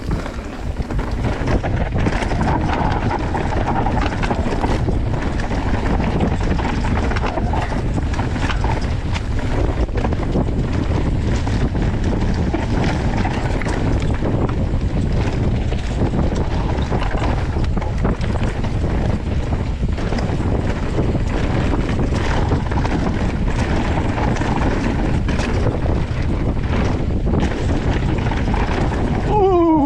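Wind buffeting the microphone of a camera carried on a mountain bike while riding, over a steady rumble of tyres on the trail and frequent short knocks and rattles from the bike going over bumps.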